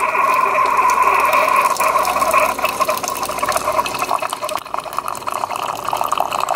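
Single-serve pod coffee maker brewing: its pump running and hot coffee streaming into a ceramic mug. A steady whir and hiss for the first couple of seconds, turning rougher and sputtering after that.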